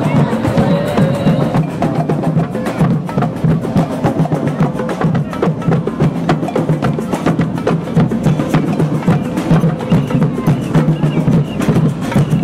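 Percussion music playing a fast, steady rhythm: drums with sharp wooden clicks.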